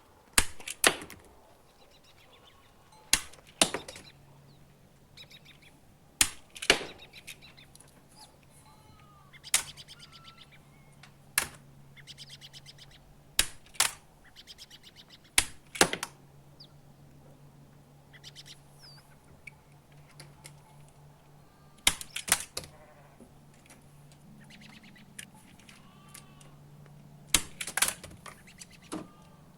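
Sharp clicks and knocks every few seconds, often in pairs about half a second apart, with chirping birds and a steady low hum behind them.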